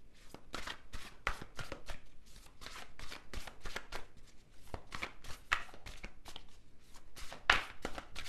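A deck of tarot cards being shuffled by hand: a run of irregular soft slaps and flicks, a couple each second, with one louder slap near the end.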